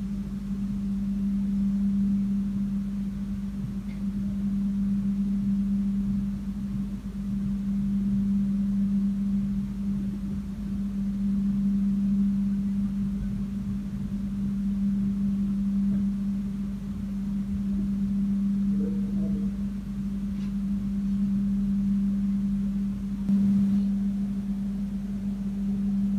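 Steady low hum of a standing passenger train, heard from inside the carriage: one low tone whose level swells and fades every few seconds, changing slightly near the end.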